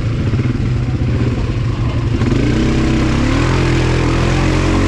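ATV engine running under throttle, its pitch rising about two seconds in and again a little later as it speeds up.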